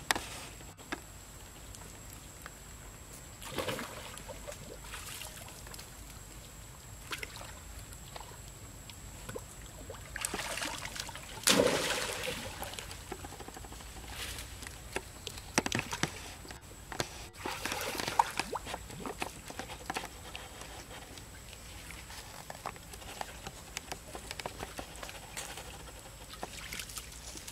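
Water splashing and sloshing as young macaques swim and paddle in a shallow pool, in scattered bursts, the biggest splash near the middle.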